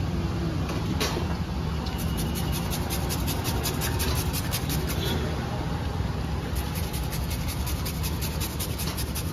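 Hand grater rasping in quick, even strokes as beetroot and then carrot are grated, starting about two seconds in, over a steady low background rumble.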